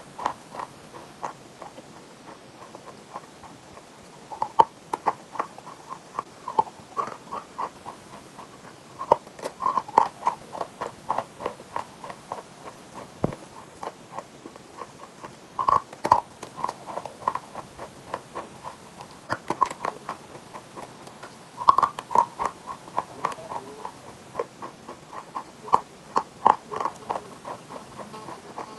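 Close-up chewing of chalk and chalk paste: crisp crunches and clicks in quick clusters, with a few louder bites.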